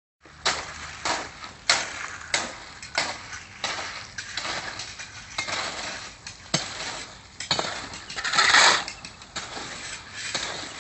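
Steel shovels scraping and chopping into a wet concrete mix of gravel and cement, in repeated strokes about every half second to second, with one longer, louder grating scrape about two-thirds of the way through.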